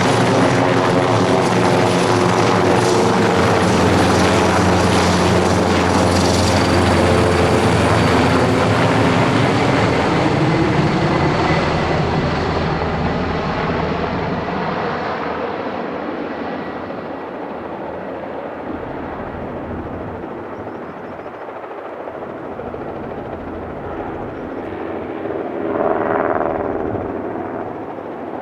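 Airbus EC225LP Super Puma helicopter's rotor and turbine sound, loud and steady at first, then fading and growing duller over about fifteen seconds as it draws away. A brief swell comes near the end.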